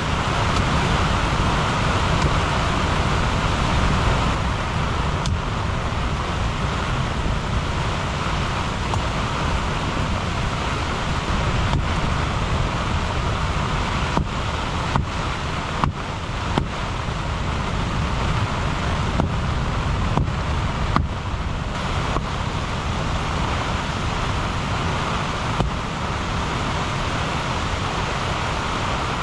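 Strong gusty tropical-storm wind buffeting the microphone, a steady rushing noise with heavy low rumble, with rain noise behind it. A few brief clicks and knocks sound through it, mostly in the second half.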